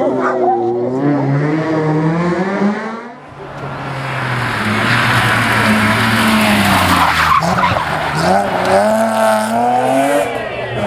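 Rally car engines revving hard, the pitch climbing and dropping as they accelerate and shift: first a small hatchback rally car through a tight bend, then, after a cut about three seconds in, a BMW E30 arriving with loud tyre noise and its engine revving up again near the end.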